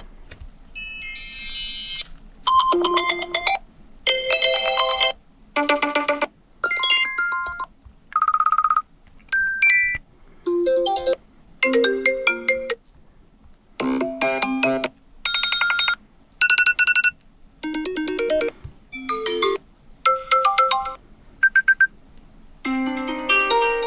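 Apple iPhone 14 Pro's built-in iOS 16 ringtones previewed one after another: about twenty short snippets of different melodic chimes and tones, each cut off after half a second to a second.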